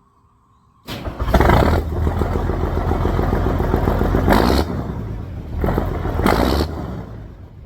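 A large vehicle engine running, cutting in abruptly about a second in, with three louder rough surges and a clattering, scraping edge, then fading near the end.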